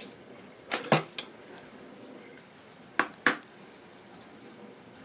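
Knocks and clicks of a cork-bark ledge on a plastic backing plate being pulled out of its side rails in a terrarium and handled: a quick cluster of knocks about a second in, then two sharp clicks about three seconds in.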